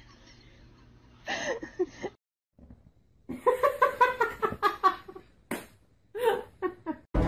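A person laughing in quick runs of short, pitched bursts, broken by a brief silence and a single sharp knock.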